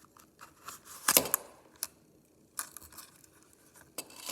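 A multi-tool's belt case being handled: a short, loud scraping rustle about a second in, then scattered clicks and light knocks.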